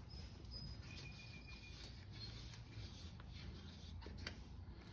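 Near silence: faint room tone with a low hum, a couple of faint short high tones and a few soft clicks about four seconds in.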